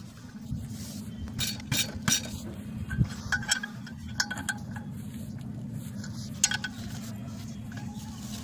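A steel spanner clinking and clanking against the bolts and housing of a clutch pressure plate as the bolts are undone, in scattered sharp metallic clinks, heaviest about two and three seconds in, over a steady low hum.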